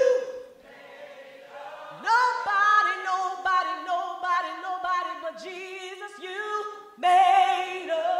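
Unaccompanied gospel singing led by a woman's voice, in long held notes. It dips quieter about half a second in, and new phrases start at about two seconds and again near the end.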